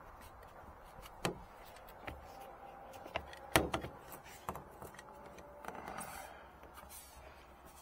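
A chrome torpedo cab marker light and its foam gasket being handled and set on a truck's cab roof: scattered light taps and knocks, the loudest about three and a half seconds in.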